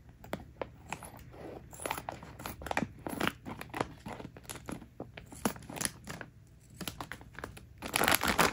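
Clear plastic packaging bag crinkling in irregular crackles as plush toys are handled and pulled out of it, louder near the end.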